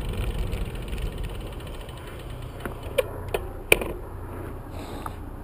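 Bicycle being ridden: a steady low rumble of tyres and wind on the bike-mounted microphone, with three sharp clicks from the bike a little past halfway, the last the loudest.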